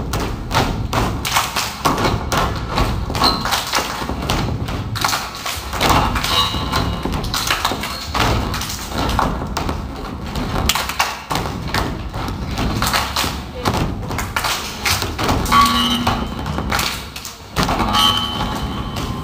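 A children's step team stomping on a wooden stage and clapping, a quick run of thumps and slaps with voices calling out now and then.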